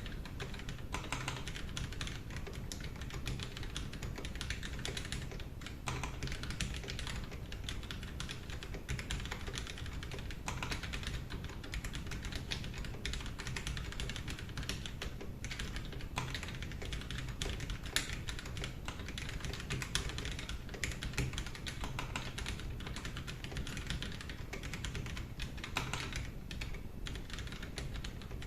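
Continuous typing on a custom mechanical keyboard with Boba U4T tactile switches: a steady, dense stream of keystroke clacks.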